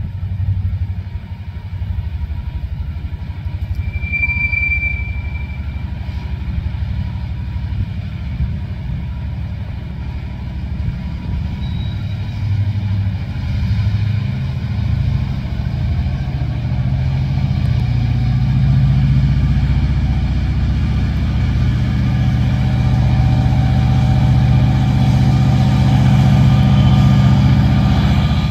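Three Union Pacific EMD SD70M diesel-electric locomotives hauling a freight train, their engines running with a low rumble that grows steadily louder as the train approaches. A short high-pitched chirp sounds about four seconds in.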